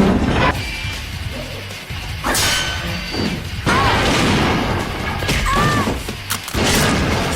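The stock 'metal pipe falling' sound effect: a metallic clang with ringing, heard about three times, each under a cartoon's music and action sound effects.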